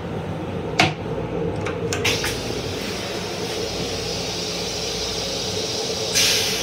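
Steady rumble and hum inside an M7 railcar's restroom, with two short clicks about a second and two seconds in. About six seconds in, a loud hissing rush starts suddenly as the onboard toilet flushes.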